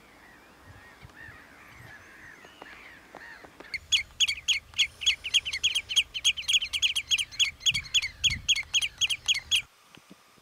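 Common redshank alarm-calling: a fast run of loud, sharp calls, about four or five a second, each note dropping in pitch. It starts about four seconds in, lasts about six seconds and then stops abruptly. Before it, faint bird calls can be heard.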